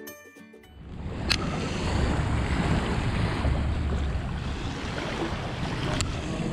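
Wind buffeting the microphone over the wash of shallow bay water, with a low rumble and two sharp clicks, one about a second in and one near the end. A music sting fades out just at the start.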